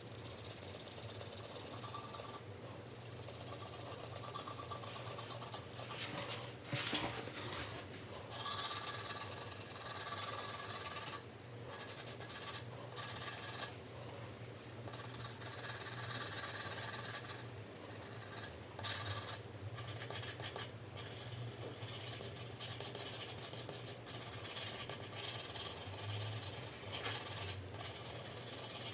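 4B pencil scratching across drawing paper in steady back-and-forth shading strokes, with brief pauses between runs of strokes.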